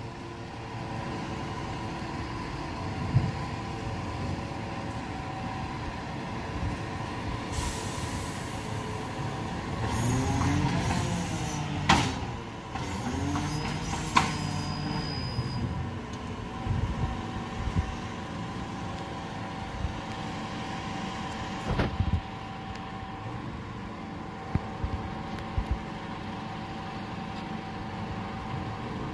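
Garbage truck running at the kerb with a steady engine and hydraulic hum. Its pitch rises and falls for a few seconds about a third of the way through as it works harder. Several sharp metallic clunks come through, one early, two close together near the middle and another later.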